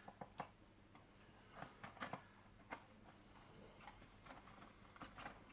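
Faint, scattered light clicks and taps as a small plastic model railcar body and wedges of card are handled and eased apart.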